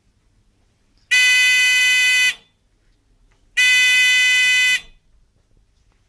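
Electronic buzzer in a breadboard alarm circuit sounding twice, each a steady, harsh buzz lasting a little over a second, with a short silence between.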